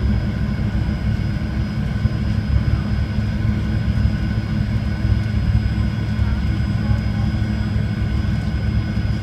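Fokker 100 jet heard from inside the passenger cabin while taxiing: a steady engine hum and low rumble with a few constant whining tones, holding level with no spool-up.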